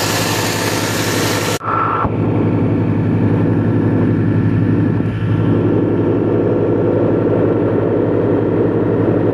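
Al-Ghazi tractor's diesel engine running steadily. After a sudden cut about a second and a half in, a tractor engine runs on at a steady speed, driving a threshing machine.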